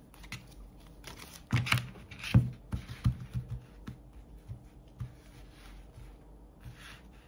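A deck of tarot cards being handled on a tabletop: a few sharp taps and knocks about a second and a half to three seconds in, then softer sliding and clicking as the cards are spread out across the table in a line.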